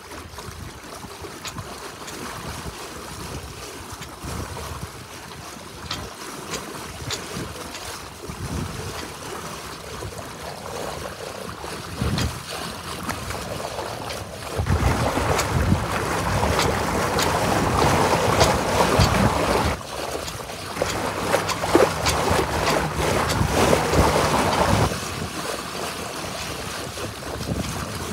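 Water rushing and splashing along a sailboat's hull as it moves under sail, with wind buffeting the microphone. The rush grows louder and splashier for about ten seconds through the middle, then eases back.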